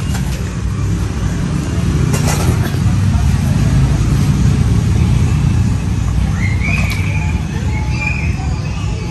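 Banana leaves crinkling as hands open and fold a leaf-wrapped bundle of steamed matoke, with a burst of crackling about two seconds in. A steady low rumble lies under it all, and a brief high chirp comes near the end.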